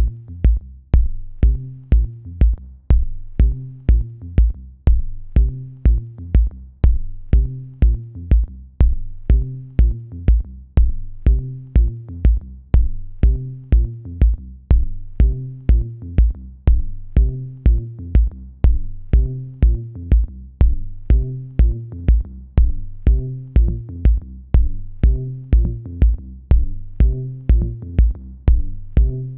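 Electronic background music with a steady drum-machine beat, about two beats a second, over a bass line.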